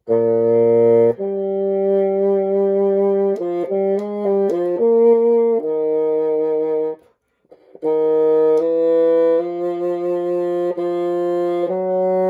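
Bassoon playing an unaccompanied slow solo melody of long held notes, with a break of about a second near seven seconds in before the next phrase begins.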